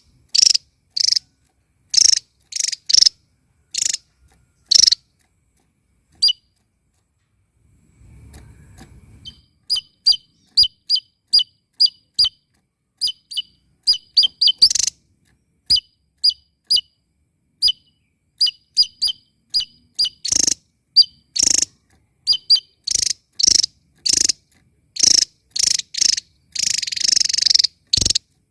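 Small songbird calling in short, sharp, high-pitched chirps, many of them quick two-note calls, in irregular runs with a pause of a couple of seconds about a quarter of the way in. Near the end it gives a longer, harsher rasp.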